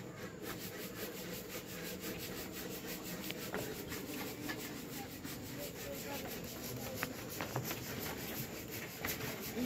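Steady rubbing and rustling of a phone held against an animal's fur, with a few faint clicks.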